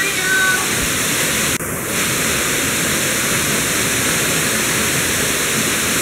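Waterfall pouring down past an icy rock overhang: a loud, steady rush of falling water, heard from behind the curtain of water.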